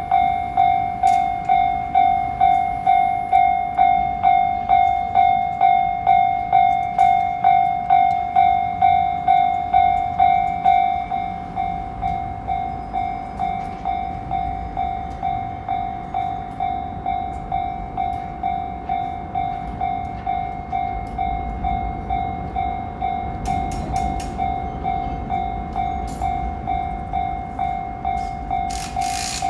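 Japanese level-crossing warning bell ringing in a steady, even rhythm of about two strokes a second; it drops in loudness about a third of the way in. A train rumbles past under it in the second half, with clicks near the end.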